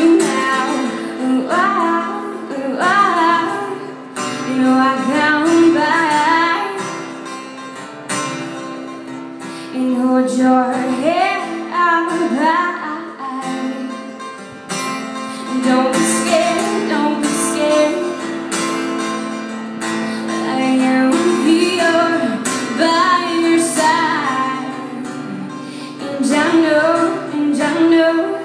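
A woman singing live, accompanying herself on an acoustic guitar.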